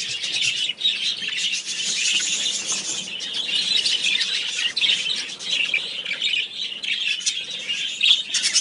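A large flock of budgerigars chattering together: a dense, continuous din of many overlapping chirps and warbles.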